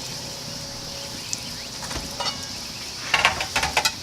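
Food sizzling steadily on a gas grill, with a quick run of clicks and clatters about three seconds in.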